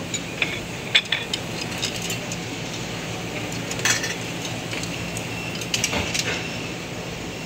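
Clinks of crockery and metal at a soup buffet: a white ceramic bowl knocking against a plate, and a metal ladle knocking in a steel soup pot around six seconds in. The scattered sharp clinks sit over a steady low hum.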